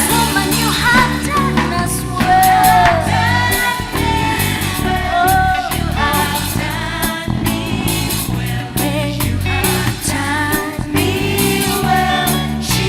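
Live gospel worship music: a band with guitar and drums backing a sung melody.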